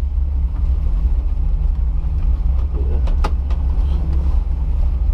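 Car engine and road noise: a steady low drone, with a brief sharp click about three seconds in.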